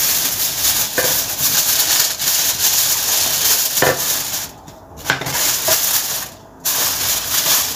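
Aluminium foil crinkling and rustling as it is handled and pressed into a baking dish to line it, stopping briefly twice.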